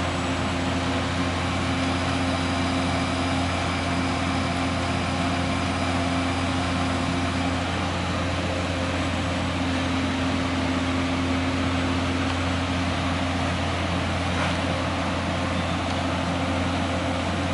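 Sikama Falcon 5C reflow furnace running, its fans giving a steady rushing hum with a low drone and a constant mid-pitched tone.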